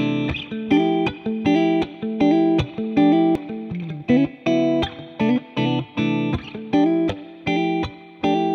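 Background music: a guitar playing short, choppy chords in a stop-start rhythm.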